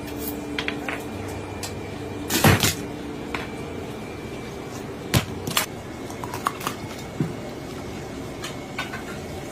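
Whole fish and a knife handled on a plastic cutting board: a heavy thump about two and a half seconds in, then scattered sharp knocks and clicks, over a steady hum.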